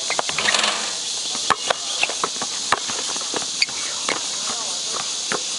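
Basketball game sounds: a ball bouncing and sneakers squeaking and scuffing on the court, over a steady high insect drone.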